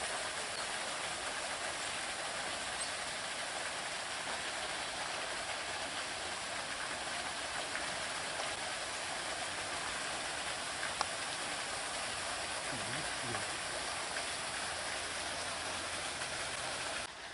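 A steady, even rushing hiss with no rhythm, like falling water, and one short click near the middle. It cuts off suddenly near the end.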